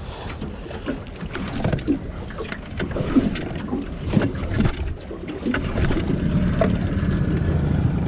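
Fishing boat under way on the river: a low motor hum that steadies over the last few seconds, with a run of knocks and slaps from water against the hull and wind on the microphone.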